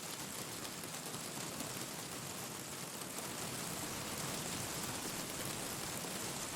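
Steady rain hiss with a crackling wood fire mixed in.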